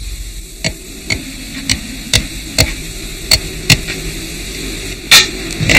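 Sharp knocks of hand tools striking wood, about nine irregular blows with a pause near the middle, over a steady hiss and low hum, as in hammering and chopping while building wooden boats.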